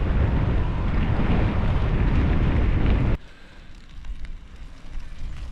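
Strong gale buffeting the microphone in a loud, low rush. About three seconds in it cuts off suddenly to a much quieter low rumble.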